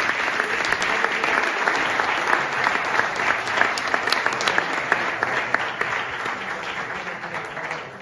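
Audience applauding steadily, the clapping dying away near the end.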